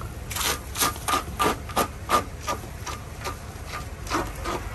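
A palm smearing a ball of soft regag dough across a round griddle in quick sweeping strokes, about three a second, each a short rasping rub. The strokes are loudest in the first two seconds and grow fainter after that.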